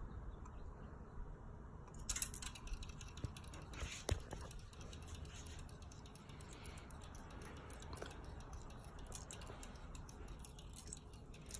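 Casablanca ceiling fan coasting down after being switched off: a faint low rumble with scattered light clicks and ticks from about two seconds in.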